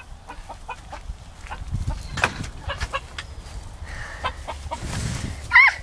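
Chickens clucking, with short scattered clucks throughout and a louder, wavering call near the end. Low rumble from the phone being handled.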